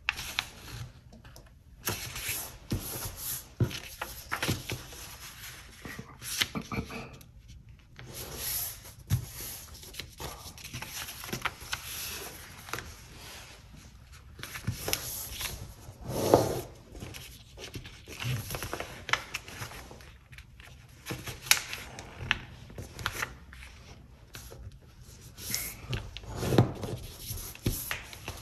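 A sheet of paper being folded by hand: irregular rustling and rubbing as it is turned and lined up, with short sharp strokes as the folds are pressed and creased flat.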